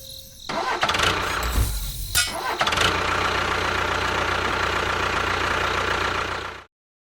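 The engine of a DIY mini tractor starting up about half a second in and then running steadily, before cutting off abruptly near the end.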